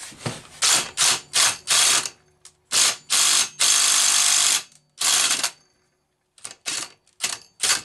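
Cordless impact driver hammering on a nut on a McCulloch 110 chainsaw in a string of short trigger pulls and a few longer runs of up to a second.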